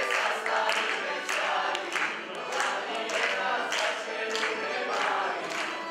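A group of voices singing together in chorus with an accordion playing, over repeated sharp claps.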